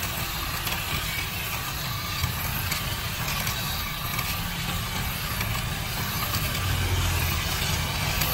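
Kutan cordless mini hedge trimmer running steadily, its reciprocating blade cutting through hedge leaves and twigs.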